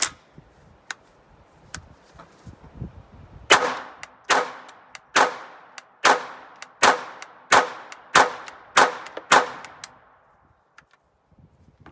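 Intratec Tec-22 .22 LR semi-automatic pistol firing about nine shots at an unhurried pace, each a sharp crack with a short ringing tail. The string stops when the pistol jams on feeding.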